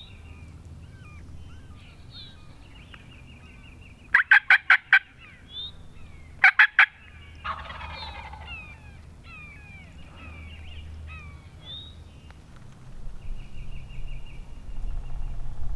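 A wild turkey gobbler gobbles twice, about four and six and a half seconds in, each a quick run of rattling pulses and the loudest thing heard. Songbirds trill in the background.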